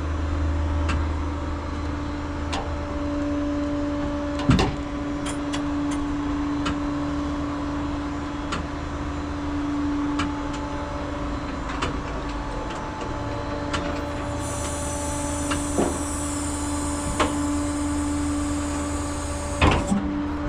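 Inside a moving vehicle's cab: steady engine and road rumble with a constant whine, sharp knocks and rattles now and then, and a high hiss from about 14 to 19 seconds in.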